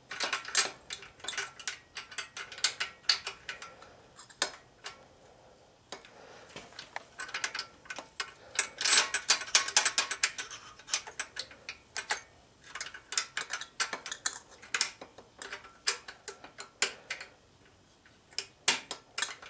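Irregular metallic clicks and ticks, coming in clusters, from push rods and rocker arms being fitted into the cylinder head of a 6 hp Tecumseh OHV engine.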